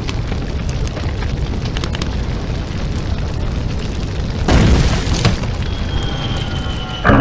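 Fire roaring steadily with scattered crackles, a louder whoosh about four and a half seconds in, and a sudden loud boom near the end.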